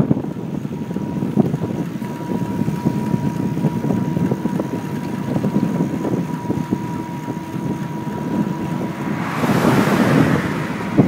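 Wind rushing over the microphone of a camera carried on a moving bicycle, a steady low rumble with a faint steady tone through the middle. Near the end the rushing grows louder and hissier.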